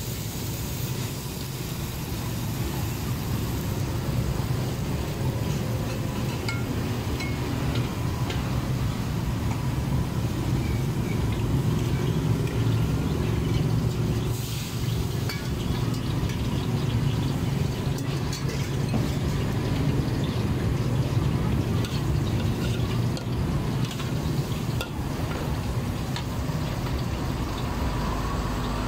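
Metal spatula clinking and scraping against a wok as shrimp, onion and greens are stir-fried, in many short scattered strokes over a steady low rumble.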